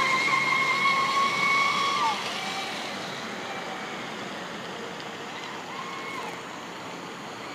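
Traxxas Spartan RC speedboat's brushless electric motor whining at speed over the hiss of the hull on the water. The high whine holds steady, then drops in pitch about two seconds in as the throttle comes off. After that it comes back fainter with the boat far out, rising and falling with the throttle.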